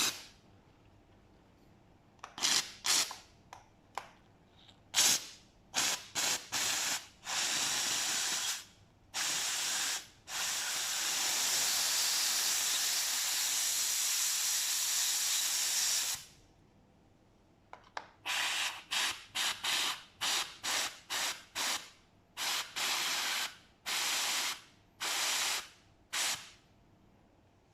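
Steam cleaner hissing in short blasts, with one long steady blast of about six seconds in the middle and a quick run of short blasts after it. The steam is being pushed through the holes of a pressure washer gun's valve part to clear what is thought to be a blockage.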